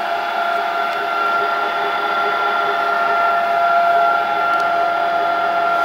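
Machinery running: a steady whine held on one pitch over a constant mechanical hum.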